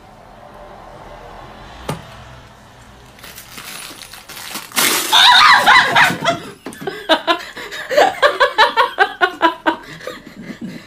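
A loud yell about five seconds in, followed by a man laughing hard in quick, even ha-ha bursts, about four or five a second.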